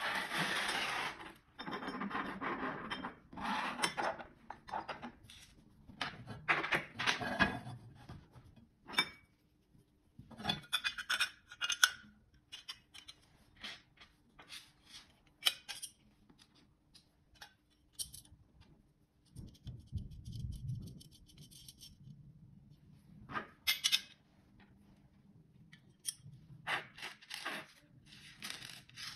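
Metal bracket pieces, bolts and washers handled on a wooden desk while a mounting bracket is assembled. Sliding and scraping for the first several seconds, then scattered clinks, taps and short rubs.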